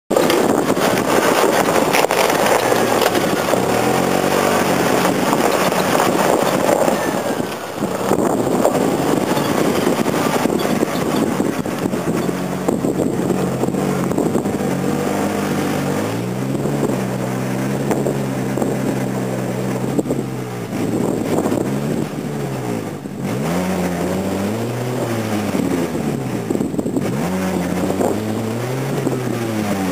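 Lifted Suzuki 4x4's engine working under load up a steep loose-gravel slope, held at steady revs and then revved up and down in repeated swells in the last ten seconds or so.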